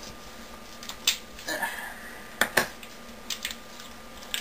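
Glued pouch cell being pried out of a lithium polymer pack: a few sharp cracks and crackles as the adhesive and the cellophane tape on the cell give way.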